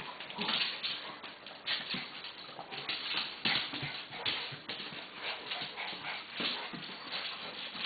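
Two dogs, a young golden retriever and a small Lhasa Apso, playfighting: a string of short, noisy dog sounds, one or two a second, with some whimpering.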